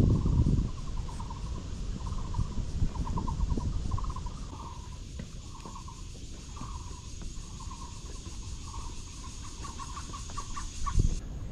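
Insects buzzing in a steady high tone, with a short, rattling trill call near 1 kHz repeating about once a second, over a low wind rumble that is strongest at the start. The high buzz stops abruptly near the end.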